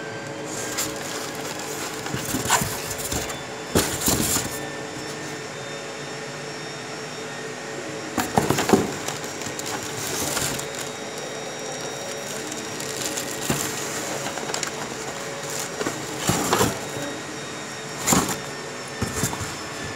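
Plastic packaging crinkling and packing material rustling in short bursts as items are handled inside a printer's shipping carton, over a steady background hum.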